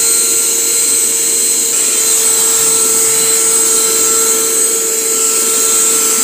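Small handheld cordless vacuum cleaner running steadily while picking up debris: a constant motor whine over a loud, high rushing hiss.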